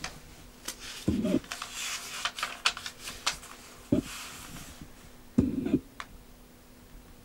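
Old paper pages of a 1943 phrase booklet crinkling and clicking as they are handled and turned, busiest in the first few seconds. Three short low-pitched sounds cut in, about a second in, at four seconds and most loudly just before six seconds.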